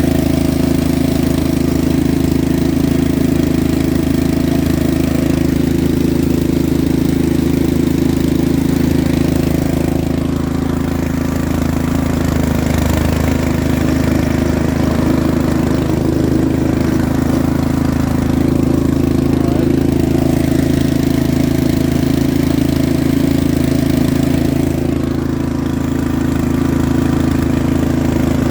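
Yard Machines 13.5 hp riding lawn mower engine running steadily and loud as the mower is put in reverse and driven, testing the newly fitted drive belt.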